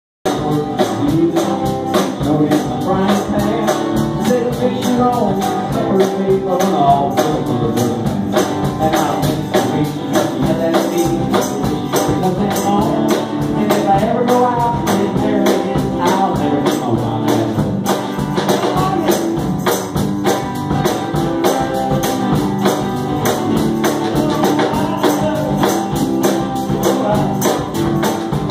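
Live band playing a song: drum kit with a steady cymbal beat, guitars, and singing.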